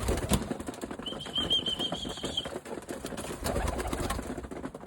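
Birmingham roller pigeons flapping their wings, with scattered clicks and knocks. A high wavering squeak starts about a second in and lasts about a second and a half.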